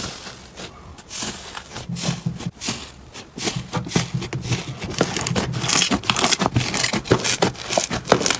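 Slime being squeezed and kneaded by hand, giving a run of sharp crackling and popping clicks that grows faster and denser about halfway through.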